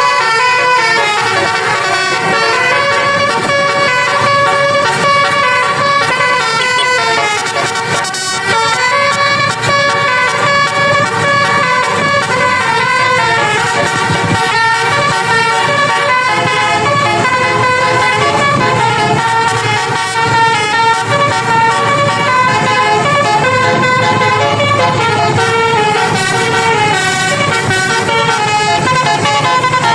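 Bus telolet horn: a set of multi-tone air horns on an Indonesian bus sounding without a break, stepping up and down through a melody of changing notes.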